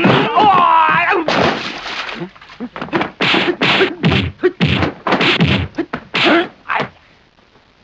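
Kung fu fight sound effects: a shouted martial-arts battle cry, then a rapid, uneven flurry of about a dozen punch and kick hits and swishes that stops about a second before the end.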